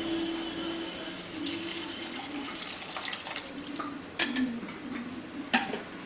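Boiled vegetables and their cooking water poured into a kadai of spice paste frying in oil, the liquid splashing and bubbling in the pan. Two sharp knocks, about four and five and a half seconds in, are the loudest sounds.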